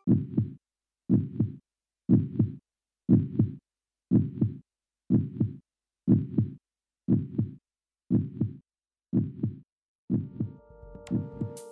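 Heartbeat sound in an electronic soundtrack: a low double thump repeating about once a second, about eleven beats. Near the end, steady held synthesizer tones come in under it.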